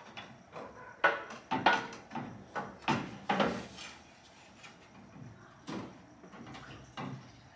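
A three-row aluminium radiator being worked down into its mounts, knocking and scraping against the metal brackets: a quick run of clunks about a second in, then two more knocks near the end.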